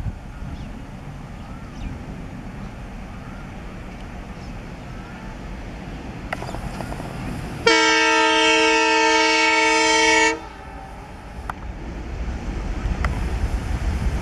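An approaching ALCO diesel locomotive's engine rumbles low, then about eight seconds in its multi-tone horn sounds one long blast of nearly three seconds, the loudest thing heard. The engine rumble grows again near the end.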